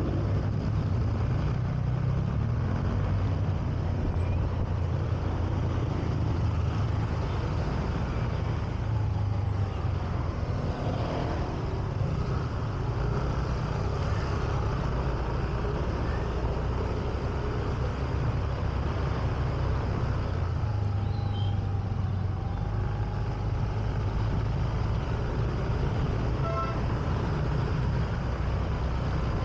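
Honda Beat 125cc scooter's single-cylinder engine running as it rides slowly through traffic, with a steady low rumble of engine and road noise and the other motorbikes and cars around it.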